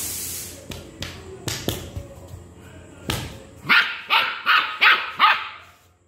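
A dog barking, a quick run of about five sharp barks, each dropping in pitch, just past the middle.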